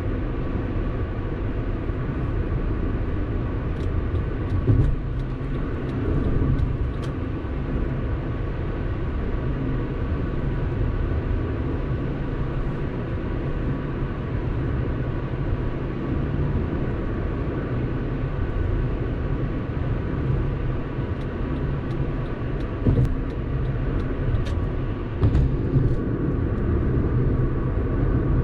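A car driving along a highway: steady engine and road rumble, with a few faint clicks and knocks about four seconds in and again near the end.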